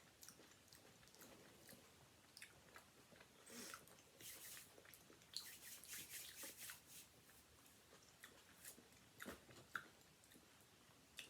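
Faint chewing of a honey mustard ham sandwich, soft wet mouth clicks and small crunches coming in irregular bursts.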